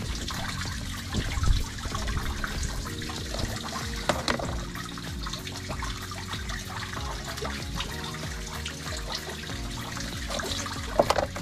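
Knife scraping and cutting a fresh fish on a cutting board: quick wet scratching and small clicks, with louder knocks about a second and a half in and again near the end.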